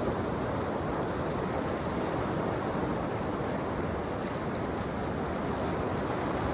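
Steady wash of ocean surf, an even rushing noise with no distinct events.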